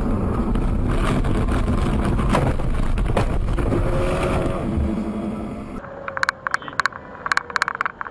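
Car running along the road, a loud steady rumble of engine and road noise with a few knocks. About six seconds in it cuts off abruptly to a quieter scene of irregular clicks and rattles.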